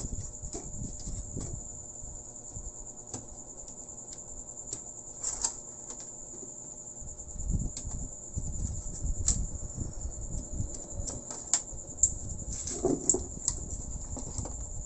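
Clicks, taps and knocks of wires and a CRT TV's circuit board being handled and lifted out, with a few sharper knocks near the end, over a steady high-pitched whine.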